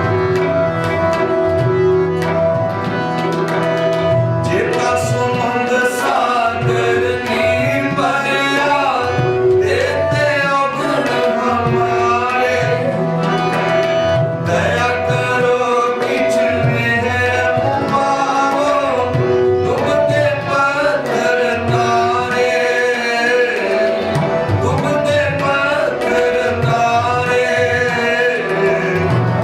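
Sikh shabad kirtan: harmonium holding sustained notes over a steady tabla rhythm, with a voice singing melodic, wordless-sounding phrases.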